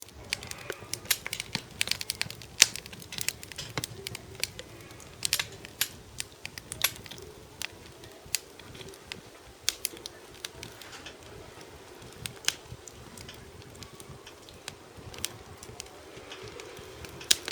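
Campfire crackling in a fire pit: irregular sharp snaps and pops, thickest in the first half, over a faint low hiss.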